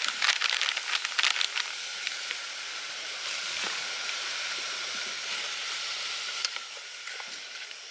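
Pre-cut vegetables tipped from a bag into a hot pot on a camping gas canister stove, crackling and sizzling for about the first second and a half. A steady hiss of the burner and the sizzling pot follows, easing off near the end.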